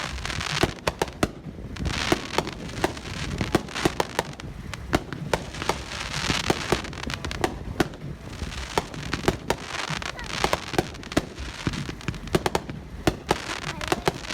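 Brothers finale set of large aerial firework cakes firing in rapid succession: a dense stream of sharp shell bursts, several a second, with recurring spells of crackling stars.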